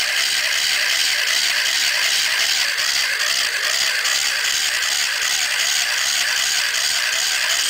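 Small battery-powered electric motor and gear train of a home-made wooden model crawler tractor running steadily as it drives its tracks: a continuous high whir with a light rattle of the track blocks.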